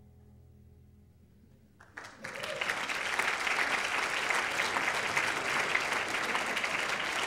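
The last held note of a small live ensemble fades out, then an audience breaks into steady applause about two seconds in.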